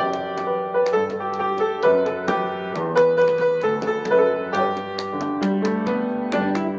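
Background instrumental music: a quick, continuous run of struck notes.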